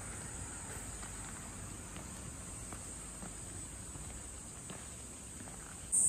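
Steady high-pitched insect chorus that jumps suddenly louder near the end, with faint footsteps on a garden path.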